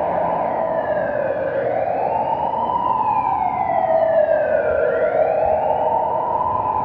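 Police siren wailing, its pitch rising and falling slowly, once up and down about every three seconds, over steady city traffic noise.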